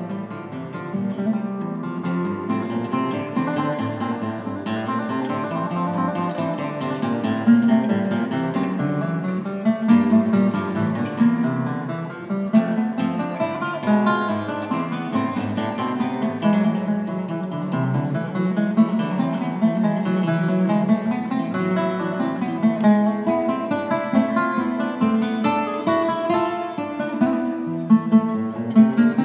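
Background music: acoustic guitar playing plucked and strummed notes without a break.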